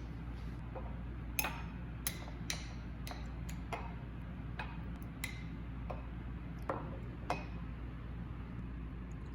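Light clicks and clinks, about a dozen at irregular intervals, some ringing briefly like glass or dishes, over a steady low hum.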